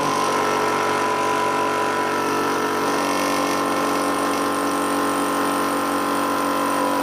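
A New Warrior water-cooled high-pressure air compressor running steadily just after switching on, a constant machine hum with a whine in it. It is pumping into a small air cylinder with its bleed valve closed, so pressure is building.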